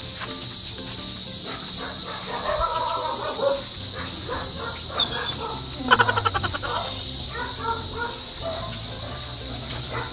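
Steady, high-pitched chorus of insects trilling without a break, with a brief run of rapid clicks about six seconds in.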